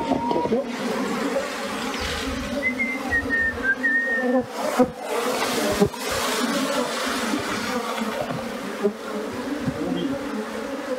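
A dense swarm of Africanized honeybees buzzing steadily at a hive entrance, a continuous hum of several pitches, as the bees crowd and fly into the box.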